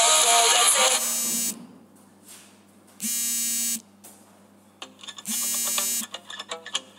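Music cuts off about a second in. A workout interval timer's buzzer then sounds three times, each buzz under a second long and about two seconds apart, with faint clicks between the later buzzes.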